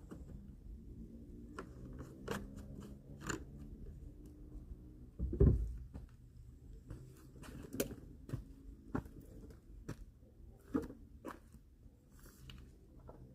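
Irregular clicks, taps and knocks of hands and parts being handled on an old lawnmower, with one louder thump about five seconds in, over a faint low hum; the engine is not running.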